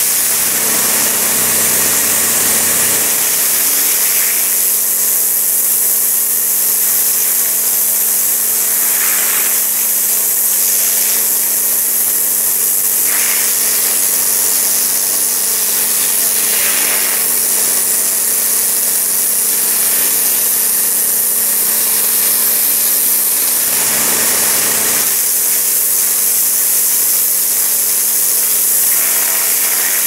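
Pressure washer running, its high-pressure jet spraying water onto brick and concrete: a loud, steady hiss over a steady motor hum. The spray sound shifts every few seconds as the jet moves, with a deeper rush at the start and again about twenty-four seconds in.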